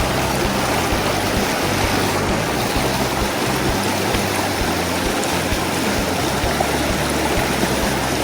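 River current rushing steadily around the wading angler, a loud, even water noise with no breaks.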